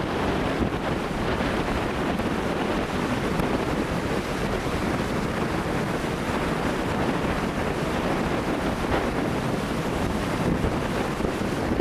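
Strong wind buffeting the camcorder microphone in a steady rumbling roar, with ocean surf washing behind it.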